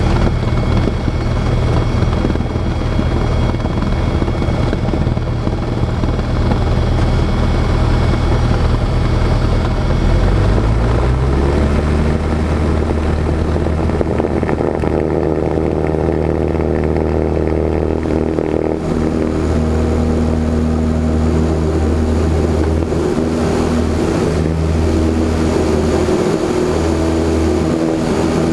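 Cessna 172's piston engine and propeller heard from inside the cockpit, running steadily at a lower pitch, then rising in pitch about ten seconds in as power comes up for the takeoff roll, and holding steady at the higher pitch after that.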